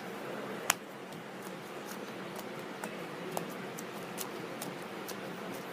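Fluffy slime being poked, giving small scattered clicks and pops, one sharper than the rest a little under a second in, over a steady faint hiss.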